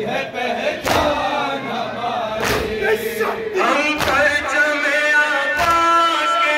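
Men chanting a noha lament, a male reciter leading through a microphone with the crowd joining in. Sharp chest-beating (matam) strikes land in time, about every second and a half.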